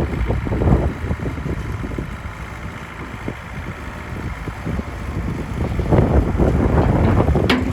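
Bobcat 435 mini excavator's diesel engine running, with some wind on the microphone. It grows louder about six seconds in, and a sharp click comes just before the end.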